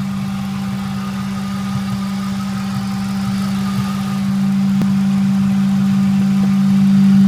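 Ford 4.6 SOHC V8 running with a strong, steady hum, growing louder over the last few seconds.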